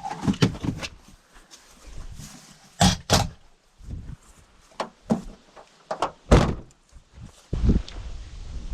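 Footsteps pushing through dry woodland brush, with twigs and branches snapping at irregular moments; the loudest cracks come about three seconds in and again around six seconds in.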